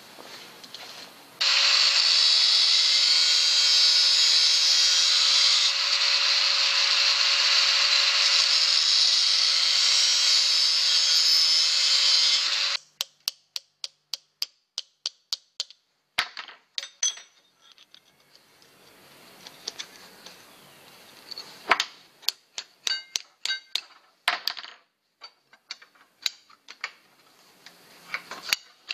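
A small shop vacuum runs steadily with a constant motor hum for about eleven seconds, then cuts off. After it come many sharp metallic clicks and light taps: short steel tube sleeves handled and tapped with a ball-peen hammer into the ends of a bent steel tube.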